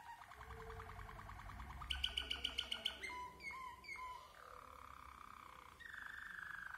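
White Waterslager (Malinois) canary singing a sequence of song tours: rolling trills, then about two seconds in a loud run of rapid, sharp clicking notes, a few short gliding whistled notes, and near the end a rolling trill that slowly falls in pitch.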